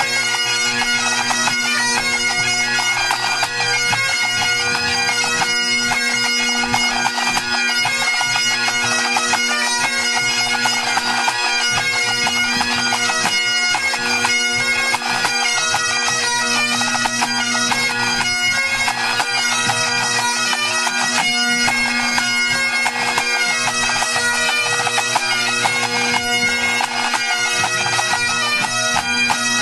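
A pipe band's Great Highland bagpipes playing together during a tune-up: the drones hold one steady low chord while the chanters play a melody broken by many quick gracenotes.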